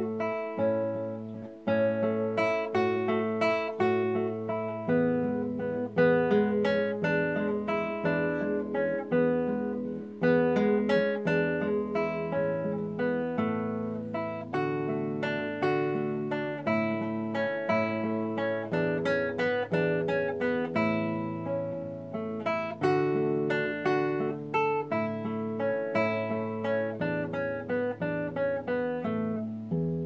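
Solo classical guitar played fingerstyle: plucked melody and broken chords over a steady line of bass notes.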